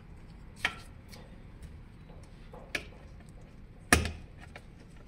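Three sharp clicks and knocks with faint ticks between them, the loudest near the end. They are the sound of a brake bracket and its screws being handled against an electric balance bike's frame while a screwdriver starts the screws.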